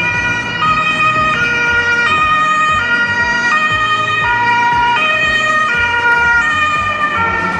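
Ambulance siren in a two-tone high-low pattern, switching between two notes about every two-thirds of a second.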